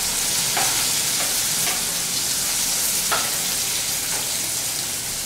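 Vegetables sizzling in hot ghee in an aluminium kadhai: a steady frying hiss, with a few light clicks of a steel ladle against the pan.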